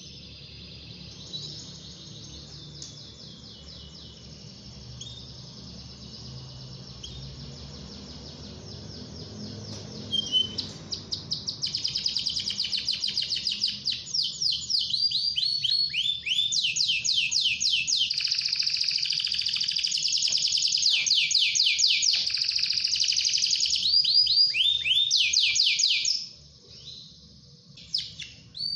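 Domestic canary singing a long, fast song of trills and rolls. It is fainter for about the first ten seconds, then loud runs of rapidly repeated notes and sweeping phrases follow, breaking off briefly near the end.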